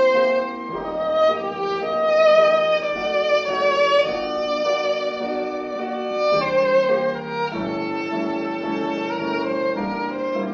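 Violin played with the bow: a melody of held notes with vibrato, over a lower sustained accompaniment.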